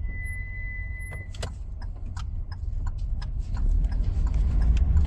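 Hyundai Creta: a low steady rumble of the car that grows louder toward the end, with a steady high tone for about the first second, then a run of irregular short clicks and creaks from the car's body.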